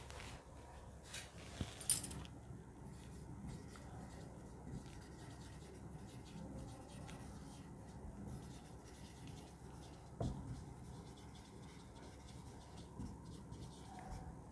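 Marker pen writing on a whiteboard: faint rubbing, squeaking strokes with small ticks. A few sharp clicks sound between about one and two seconds in.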